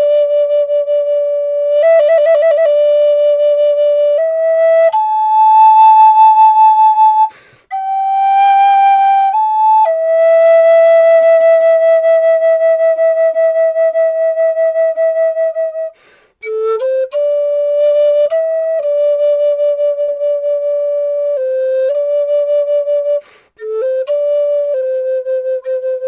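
Solo flute playing a slow melody of long held notes, with a quick wavering trill about two seconds in. The playing breaks off briefly three times between phrases.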